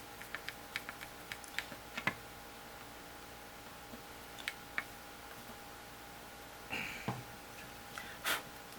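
Light clicks and taps from small parts being handled during hand assembly. A quick run of clicks comes first, then two more a few seconds later, a brief scrape, and a sharper tap near the end.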